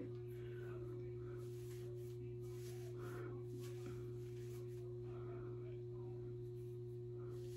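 Steady low electrical hum with a faint, thin steady tone above it, and a few faint soft rustles.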